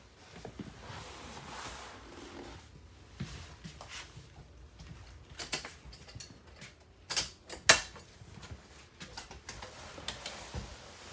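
Fold-out couch being handled: rustling of cushions and upholstery with scattered clicks and knocks from its folding frame, including two sharp clacks about seven seconds in.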